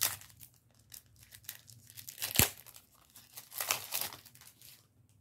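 A 1988 Score baseball card pack wrapper is torn open by hand, crackling and crinkling, with one sharp snap about two seconds in.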